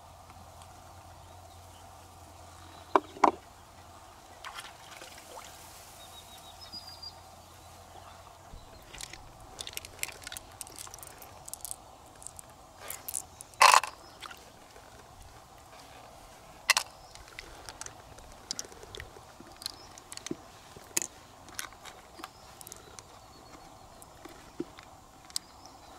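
Irregular sharp clicks and knocks of opened freshwater pearl mussel shells and pearls being handled. The two loudest come about three seconds in and about halfway through, over a faint steady background.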